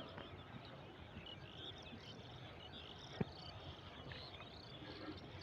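Faint outdoor ambience of many small high chirping calls, with a single sharp tap a little after the middle.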